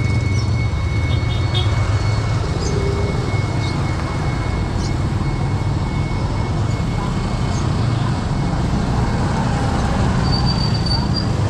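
Street traffic: motorcycles and motorcycle tricycles running and passing close by on a narrow road, a steady engine drone.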